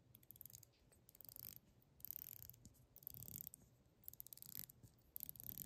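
The rotating dive bezel of a Seiko Uemura diver's watch being turned by hand: faint, very quiet runs of rapid ratchet clicks, in about five short bursts.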